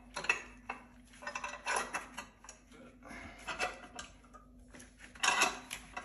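Metal parts clinking and scraping: a steel chainring tool being fitted onto a bicycle crank spindle held in a bench vise. The sounds come as irregular small knocks and scrapes, the loudest a little after five seconds in.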